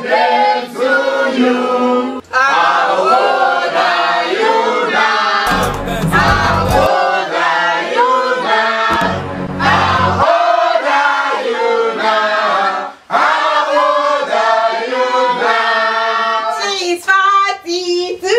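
A group of men and women singing together in a lively celebration song, with a couple of short low rumbles about a third and halfway through.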